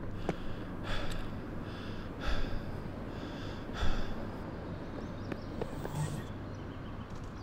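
A man breathing hard and gasping after running, with a few sharp loud breaths in the first four seconds and some scattered footsteps.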